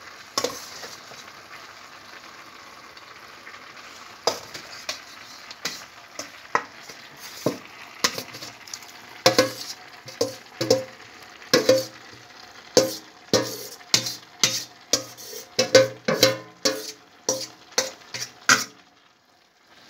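Metal spoon scraping and knocking against a metal pan while sautéed cabbage is spooned out of it into a pot, over a low sizzle. The knocks come few at first and then thick and fast from about halfway through, stopping shortly before the end.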